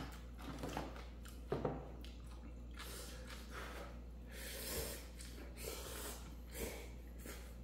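A person eating ramen noodles: several short, wet slurps and chewing sounds, spaced out at irregular intervals.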